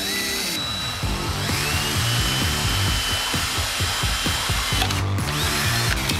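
Cordless drill boring through thin aluminum sheet. The motor whine rises as it spins up, runs steady, and stops briefly about five seconds in before starting again.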